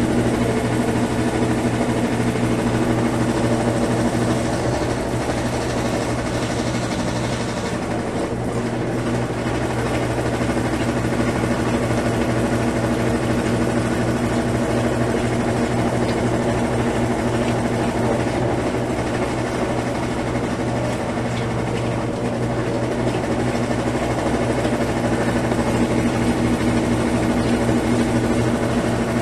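Brastemp Ative 11 kg BWL11 washing machine on its spin cycle ahead of the rinse: the drum and motor running at speed with a steady, loud hum of several even tones, easing slightly a couple of times.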